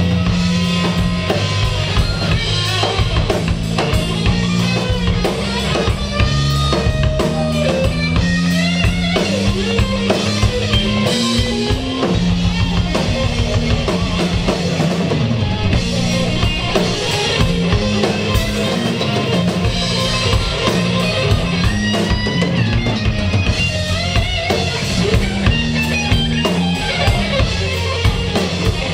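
Live blues-rock band playing an instrumental passage: a lead electric guitar solos with string bends over bass guitar and drum kit.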